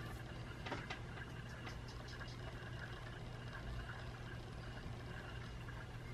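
A steady low hum in a small room, with a few light clicks and rustles about a second in, like hands working through hair.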